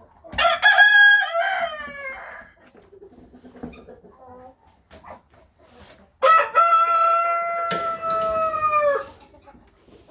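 Rooster crowing twice: a short stepped crow about half a second in, then a longer crow held on one pitch that drops at its end, with quieter hen clucking between.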